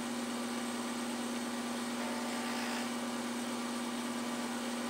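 Vacuum pump of a portable esthetic suction machine running steadily on a low setting for glass-cup lymphatic drainage: an even hum with one steady low tone over a soft hiss.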